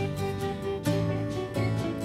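Instrumental background music with plucked-string notes over held tones.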